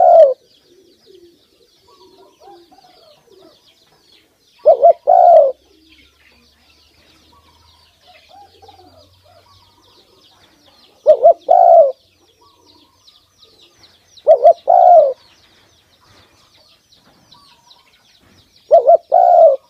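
Spotted dove cooing: a loud two-part coo, a short note followed by a longer one. It comes four times, three to six seconds apart, with the end of another coo right at the start.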